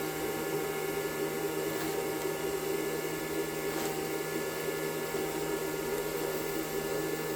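Hair blow dryer running steadily, blowing air through a shop-vac hose into a homemade fresh-air welding helmet: an even whir with a motor hum.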